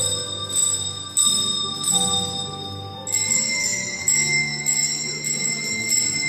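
Small hand-held handbells rung one note at a time, playing a slow tune; each strike rings on, and the notes move higher about halfway through.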